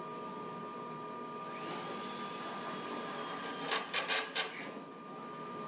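Steady workshop hum with two fixed tones, and about four seconds in a quick run of four sharp knocks from carpenters fitting wooden slats into the roof frame of the pod.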